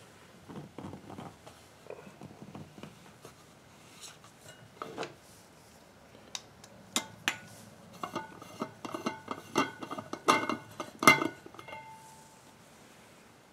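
Clicks and metallic clinks of a stainless steel vacuum food jar and its screw lid being handled and unscrewed. Scattered light clicks at first, then a quick run of clinking and rattling with short ringing tones in the second half, loudest near the end.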